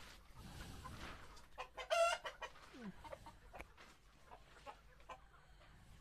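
Chickens clucking quietly, with one short, louder pitched call about two seconds in.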